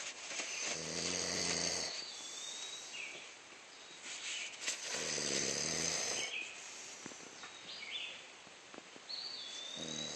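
A man snoring in deep sleep: two long snores about four seconds apart, with a third starting near the end.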